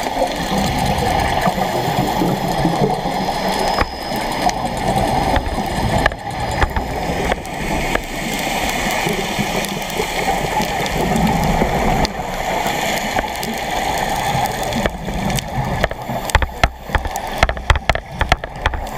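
Underwater gurgling and bubbling picked up by a diver's camera in its housing, steady throughout, with a quick run of clicks and knocks near the end.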